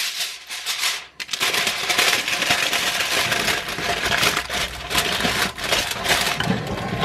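Aluminium foil crinkling and rustling as it is pressed and crimped around the rim of a glass roasting dish, with a short pause about a second in.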